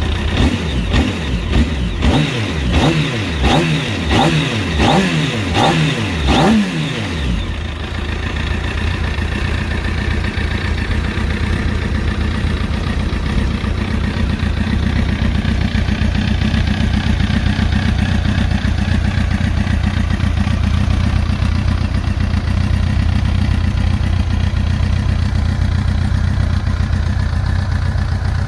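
2004 Kawasaki ZX-10R's 998 cc inline-four running through an aftermarket road-legal muffler. It takes a quick series of throttle blips, about one a second, then settles about seven seconds in to a steady idle.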